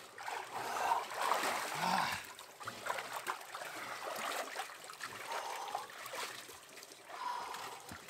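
Spring water trickling and splashing into a small pool, with short, irregular splashes.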